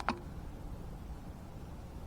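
Quiet room tone with a steady low hum, and a single small click right at the start.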